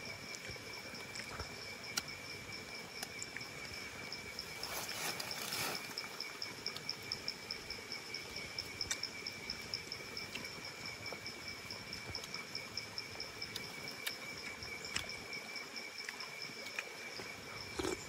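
Night insect chorus: a steady, high, pulsing trill at two pitches, with scattered faint clicks and a brief rustle about five seconds in.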